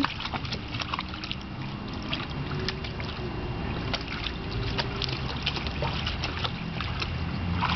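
Water sloshing and splashing in a shallow plastic kiddie pool as a Newfoundland puppy and an adult Newfoundland wade in it: many small, irregular splashes over a steady low rumble.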